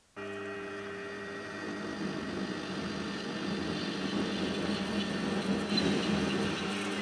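Metal lathe running, its motor and spindle giving a steady hum, while a turning tool cuts an aluminium bar; the cutting noise grows louder from about two seconds in. The sound starts abruptly just after the beginning.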